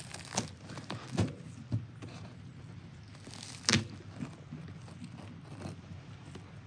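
Pliers gripping and twisting steel hog rings off a car seat's spring frame: a few sharp metal clicks and snaps over faint rustling of the leather cover and coir padding, the loudest snap a little past halfway.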